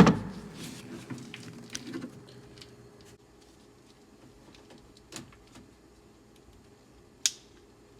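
A sharp plastic snap as a cable is unclipped from the door lock actuator inside the car door. It is followed by small clicks and rustling of the parts being handled, with another sharp click near the end.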